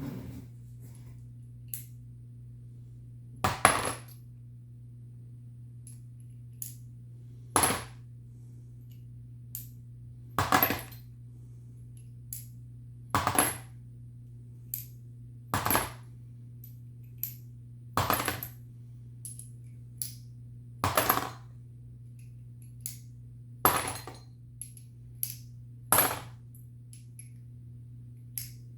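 Loaded 38 Special brass cartridges clinking one at a time as they are dropped into a 38 Special ammo checker and fall back out: a sharp metallic clink about every two to three seconds, with lighter taps between. The rounds drop freely, the sign that they are correctly sized and crimped without case buckling.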